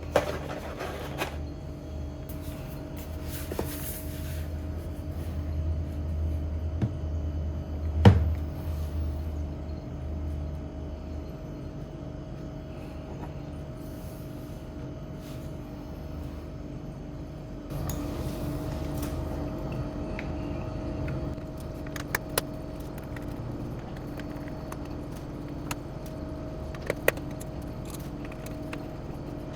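Scattered sharp clicks and small clinks of hard objects being handled, the loudest about eight seconds in, over a steady hum with a low rumble in the first third.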